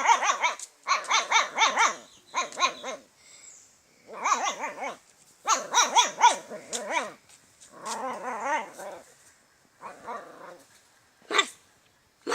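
A dog barking and growling in quick runs of short, wavering barks, broken by pauses of about a second.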